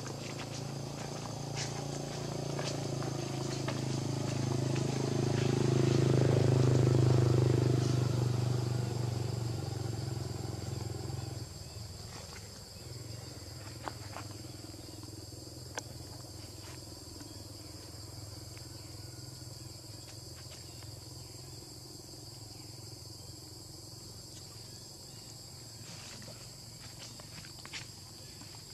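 Steady high-pitched insect drone. Under it, a low steady hum swells to its loudest about seven seconds in and cuts off about eleven seconds in, and a few light ticks follow later.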